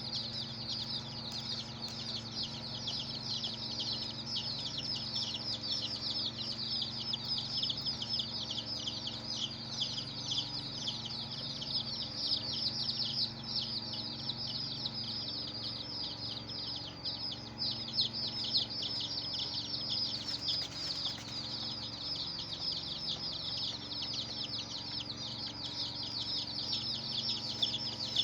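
A brood of baby chicks peeping nonstop, a dense overlapping stream of short high falling chirps.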